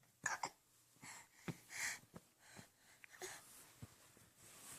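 A young child making quiet, breathy silly sounds: a few short puffs of breath, with small sharp clicks in between.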